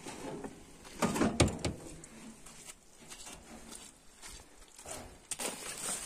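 A heavy rusty metal drum being handled and moved, with a quick cluster of loud knocks about a second in and softer scrapes and bumps after.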